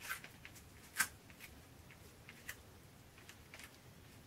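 Faint, scattered light taps and scratches of a painting tool dabbing paint onto the painting to make grass, the clearest about a second in.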